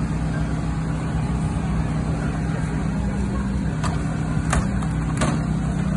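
Engine of a hydraulic rescue-tool power unit running steadily, driving the extrication tools. Three short sharp sounds come less than a second apart near the end.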